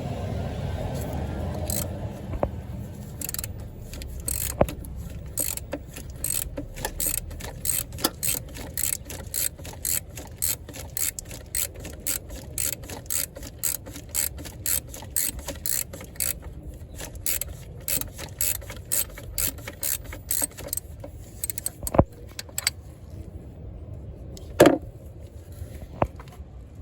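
Ratchet wrench clicking in a steady back-and-forth rhythm, about two clicks a second, as it unscrews the oil filter housing, followed by a couple of sharper knocks near the end.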